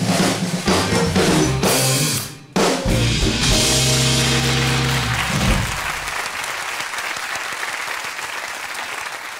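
A short game-show jingle with drum kit and cymbals, ending on a held chord about six seconds in. Studio audience applause rises under the final chord and slowly dies away.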